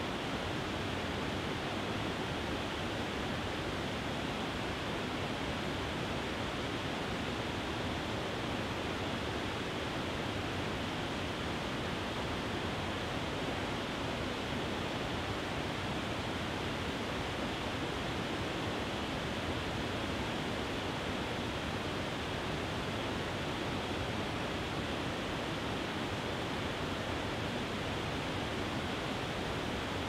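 Small waterfall: water pouring over a low rock ledge into a pool, a steady, even rush that does not change.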